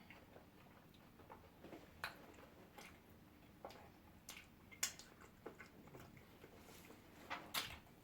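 Faint eating sounds over near silence: soft chewing with scattered small mouth clicks and smacks.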